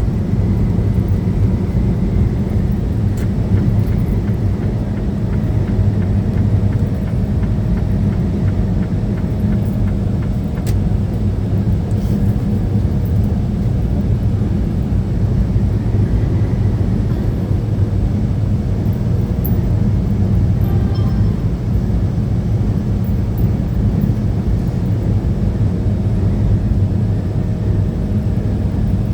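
Steady engine and road rumble inside the cab of a moving truck.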